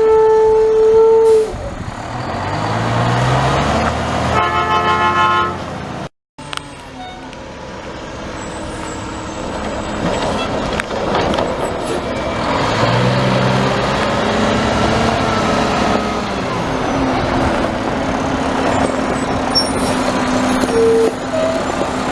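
Garbage truck working, its engine revving up and falling back twice under load, with a steady beep-like tone at the start and a short beep near the end.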